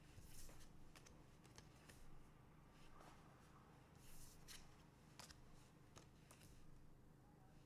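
Faint handling of trading cards: several short swishes and light clicks as cards are slid and set down.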